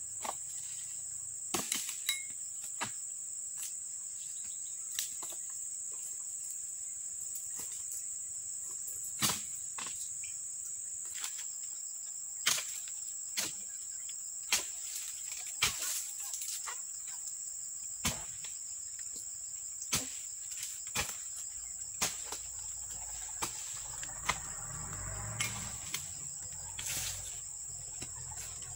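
Sharp knocks every second or two from a dodos chisel on a long pole chopping at the frond bases of an oil palm, over a steady high-pitched insect drone, with a rustling near the end.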